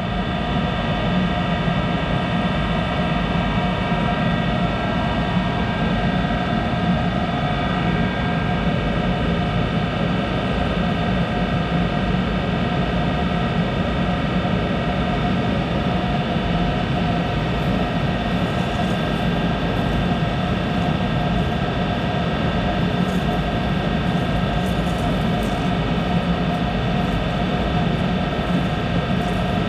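Monarch 10EE lathe running steadily, a noisy hum with several steady tones from its drive and spindle, which the owner suspects comes from a bad bearing somewhere inside. A few faint light ticks come in the second half.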